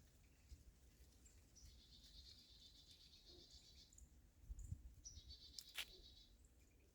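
Faint bird calls: two high buzzy trills, the first about two seconds long and the second shorter, with a few soft high chips. A single sharp click comes near the end.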